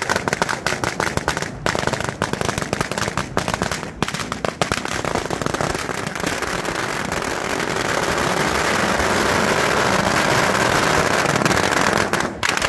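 A long string of red firecrackers going off: a rapid run of sharp bangs that thickens into a continuous crackle after about five seconds and drops off just before the end.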